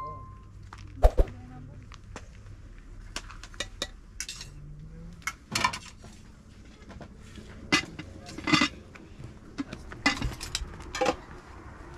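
Dishes and cutlery clinking and knocking now and then as a meal is served and eaten: scattered short, sharp clinks of plates, bowls and spoons.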